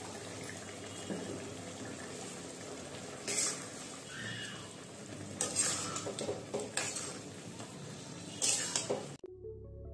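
A flat steel spatula stirs chicken in a thick simmering green gravy in a metal kadai, scraping against the pan several times over a steady sizzle. Background music cuts in abruptly near the end.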